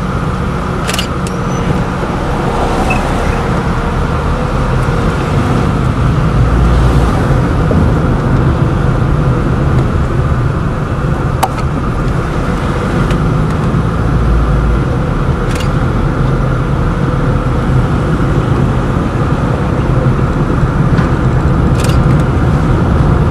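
A car driving, with steady engine and tyre-on-road noise and a low rumble, and a few light, sharp clicks spaced several seconds apart.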